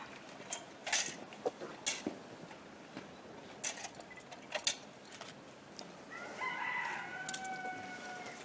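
Light metallic clinks of a thurible's chains and censer as it is swung toward a statue, several single knocks in the first few seconds. About six seconds in, a rooster crows once, a held call of about two seconds that falls slightly at the end.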